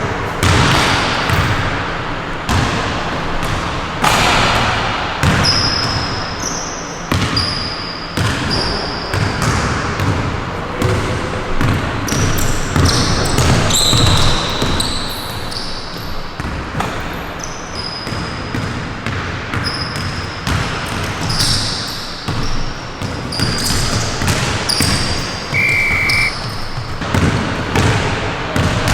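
Basketball play on an indoor court: the ball bouncing repeatedly, with short high sneaker squeaks on the floor.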